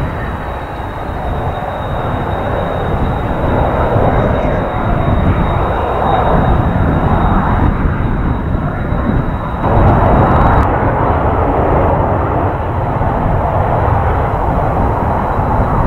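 Kawasaki T-4 jet trainers' twin turbofan engines at high power during takeoff runs, a steady jet roar that swells and grows louder about two-thirds of the way through.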